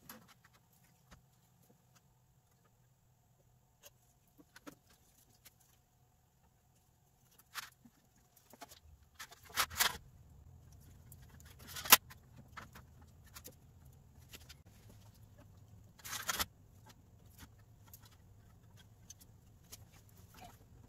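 Handling noise from an LED light strip being pulled off its plastic reel and routed through a laser cutter's work bed: scattered light clicks and rustles. The loudest are a short rustle about ten seconds in, a sharp click about twelve seconds in and another rustle about sixteen seconds in.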